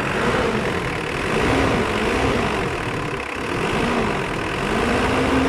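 Mitsubishi 4D56 2.5-litre four-cylinder turbodiesel running with a steady low clatter, its note rising and falling about every second and a half. The owner hears it knocking unevenly and suspects debris from the cylinder caught under a valve, holding it open.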